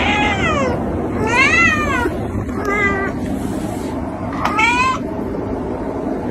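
A cat meowing four times over about five seconds, each short meow rising and then falling in pitch.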